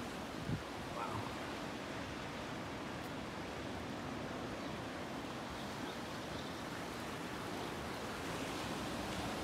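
Steady wash of small waves over rocks and pebbles along a rocky ocean shoreline, with a brief low thump about half a second in.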